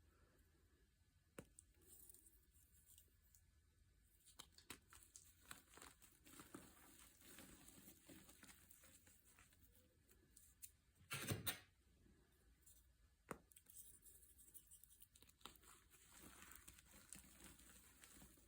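Faint crinkling and crackling with scattered small clicks, and one louder crunch about eleven seconds in.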